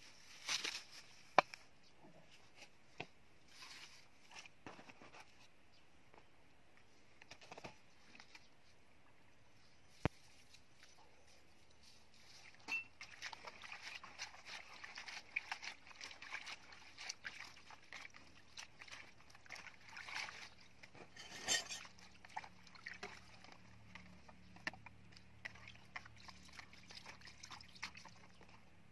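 A cleaver chopping water spinach stems on a wooden chopping block, a few sharp knocks spaced out over the first ten seconds or so. Then hands washing the cut greens in a plastic basin of water, with steady sloshing and splashing.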